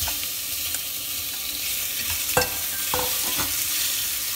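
Pieces of marinated red tilapia fillet sizzling in hot oil with ginger in a stainless steel pot as they are stirred, a steady frying hiss. A few knocks of the stirring utensil against the pot ring out, the loudest about two and a half seconds in.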